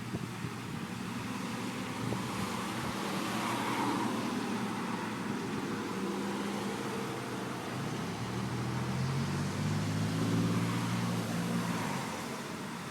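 Road traffic: vehicles driving past with tyre and engine noise, swelling about 4 seconds in and again around 10 seconds, the second pass with a strong low engine hum.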